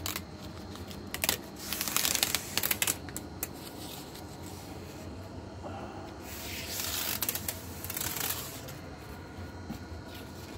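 Paper release liner being peeled off a strip of butyl tape, a crackling, tearing rustle. It comes in two bouts, about a second in and again around six seconds in.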